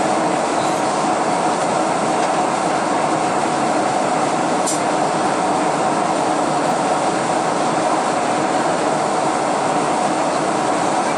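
Steady cabin noise inside a Boeing 747-400 in cruise, heard beside the wing. Its four GE CF6-80C2 turbofans and the airflow make an even rush with a low hum.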